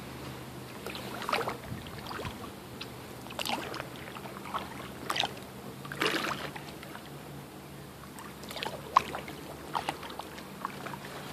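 Kayak paddle blades dipping into calm water and pulling through it, with splashes and drips coming irregularly every second or two.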